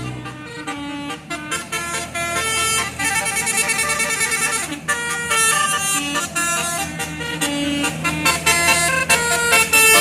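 Bus telolet horn, a bank of switched air horns, playing a fast stepping melody with short sharp notes one after another.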